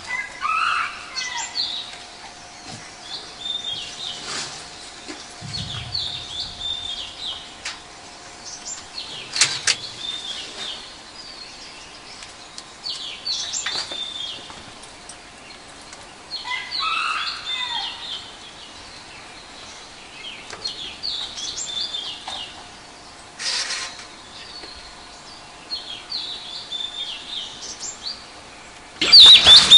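Birds calling and chirping again and again in short phrases, over a faint steady hum. A much louder burst of chirping starts near the end.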